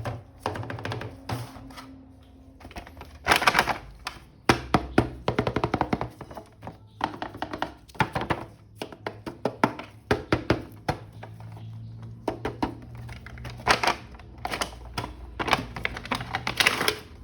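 Irregular clicks, taps and knocks of a plastic toy action figure and its packaging being handled, some in quick runs, over background music.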